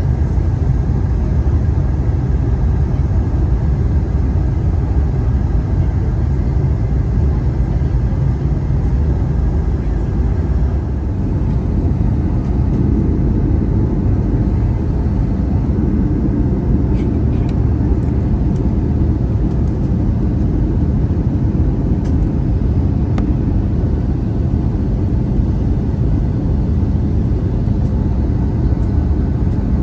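Steady low roar of engine and airflow noise inside the passenger cabin of an Airbus A319 in flight, with a few faint clicks about seventeen seconds in.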